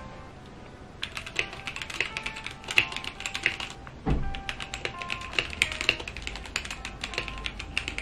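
Typing on a Womier/Gamakay K87 mechanical keyboard: quick runs of keystrokes starting about a second in, with one deeper, louder keystroke about four seconds in.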